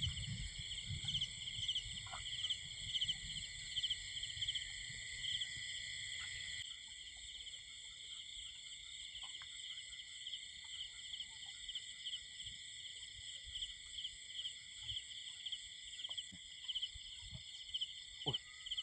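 Night chorus of crickets and other insects: several steady high trills at once, one of them pulsing in a regular chirp. One trill cuts out about six and a half seconds in, along with a low rumble that sits under the chorus until then.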